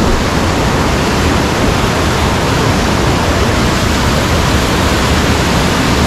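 Waterfall in full monsoon flow: a loud, steady rush of falling water.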